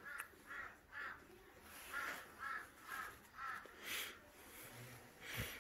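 A crow cawing repeatedly, faint: about nine short caws in a loose series, with a pause between them about a second in.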